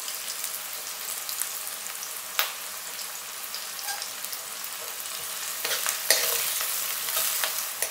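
Chopped onion sizzling as it sautés in hot oil in a kadhai, stirred with a steel ladle. A single sharp tap comes about two and a half seconds in, and the stirring gets louder and scrapier from about five and a half seconds until near the end.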